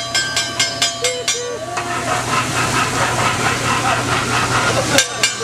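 Hibachi chef's metal spatulas clacking on the flat-top griddle at about four strikes a second, giving way about a second and a half in to a loud sizzling hiss that lasts about three seconds, then the clacking starts again suddenly near the end.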